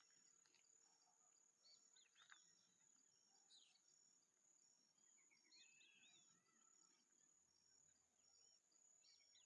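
Faint countryside nature sounds: scattered short bird calls and chirps over a steady high insect buzz, with a short high-pitched pulse repeating a little more than once a second.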